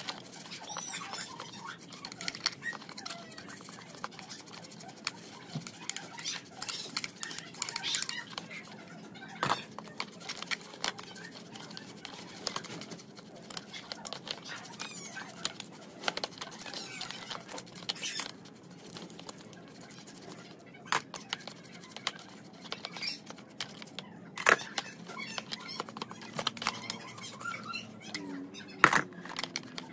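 A bristle paintbrush scrubbing small steel engine parts (gears, valves, bolts) in a shallow tray of liquid: wet swishing, with frequent sharp clicks and clinks as metal parts are handled and knock together, two of them loudest near the end.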